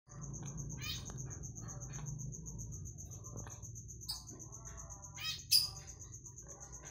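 Sick Eclectus parrot with a respiratory illness making several short coughs and calls, the sharpest and loudest about five and a half seconds in. A steady, high, pulsing trill runs underneath.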